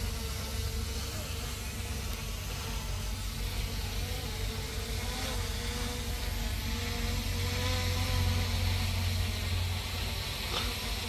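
F11 4K Pro quadcopter drone flying overhead at a height, its propellers giving a steady insect-like buzz whose pitch wavers and drifts slightly upward.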